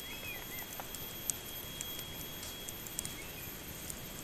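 Wood campfire crackling with scattered sharp pops. A bird chirps briefly near the start and again about three seconds in, over a thin, steady high tone.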